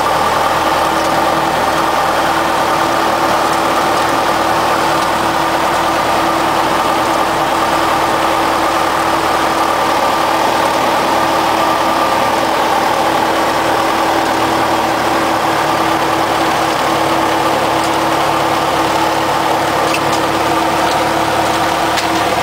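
Cessna 172's four-cylinder Lycoming engine and propeller idling steadily at about 1,000 rpm, heard from inside the cockpit. A steady hum joins shortly after the start.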